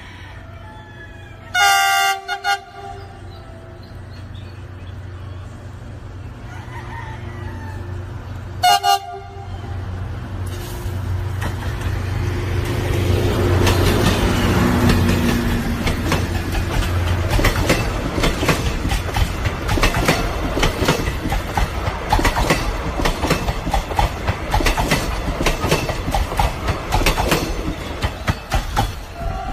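Diesel-hydraulic locomotive approaching and passing with its engine running: a horn blast near the start and a shorter one several seconds later. The engine drone grows louder until it passes around the middle, then the coaches roll by with a rapid clickety-clack of wheels over the rail joints.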